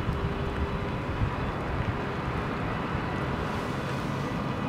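Wind buffeting the microphone, with a distant VR Class Sr2 electric locomotive faintly audible as a few thin steady tones as it starts to move off with its passenger train.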